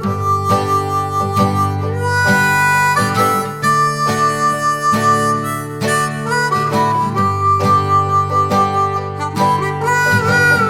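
Background music: a harmonica playing a melody of held, slightly bending notes over acoustic guitar chords.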